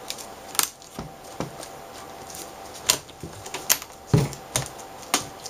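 Plastic clicks and taps as an LCD panel's plastic frame is fitted over the backlight and diffuser sheets and the assembly is handled, with a heavier knock about four seconds in.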